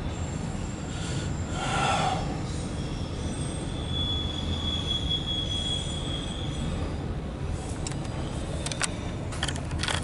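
CSX intermodal/autorack freight train rolling past, heard from inside a car: a steady low rumble of the passing cars, with a high steady wheel squeal for a few seconds in the middle. A run of sharp clicks comes near the end.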